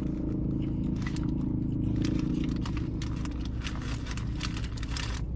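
Eating sounds during a mukbang: scattered soft crackles and clicks of chewing and handling the food, over a steady low hum.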